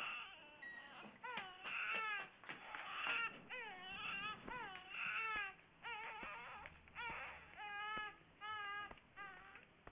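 A baby crying: a run of short cries one after another, each bending up and down in pitch.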